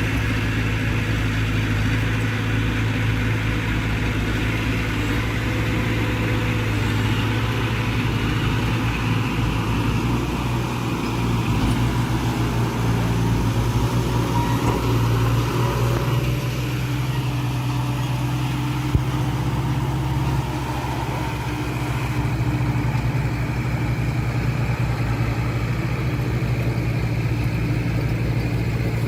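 Diesel engine of heavy earthmoving machinery running steadily, with one sharp click about nineteen seconds in.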